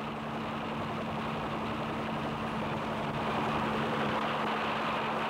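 Bell UH-1 'Huey' helicopter in flight, a steady engine drone with a constant low hum, growing a little louder about three seconds in.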